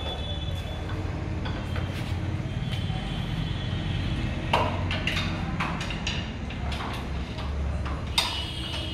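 Metal tools clinking and knocking against a tractor's engine and front end as mechanics work on it, with sharper knocks about four and a half seconds in, about five seconds in and near the end. A steady low machine hum runs underneath.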